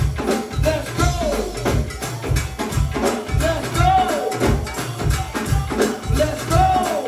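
Live go-go band music: a steady, driving drum and percussion groove over bass, with a melody line over the top.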